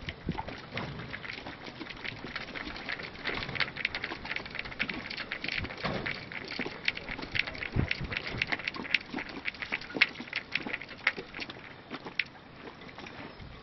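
Small choppy waves lapping and slapping against the hull of a small boat: a dense, irregular patter of little splashes.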